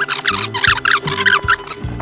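Background music: held low notes changing every half second or so under quick, chirping high-pitched sounds.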